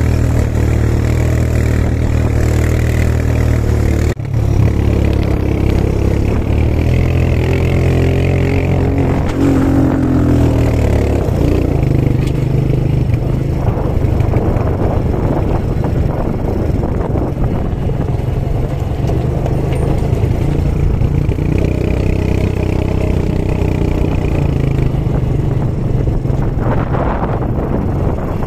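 Quad bike (ATV) engine running while riding, its pitch rising and falling with the throttle. A brief break about four seconds in.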